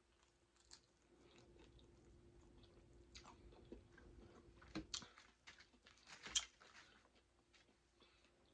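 Faint, close-up chewing and biting of food: scattered soft mouth clicks and smacks, the loudest about five and six and a half seconds in.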